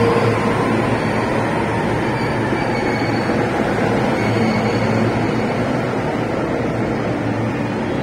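JR East E233-3000 series electric train rolling slowly past along the platform as it arrives, its wheels and running gear giving a steady running noise with a few faint whining tones.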